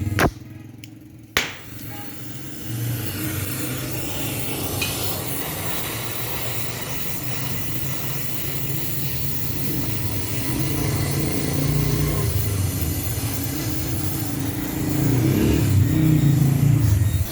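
Electric arc welding: a steady sizzling crackle over a low electrical hum that starts about three seconds in, after two sharp clicks, and grows a little louder near the end.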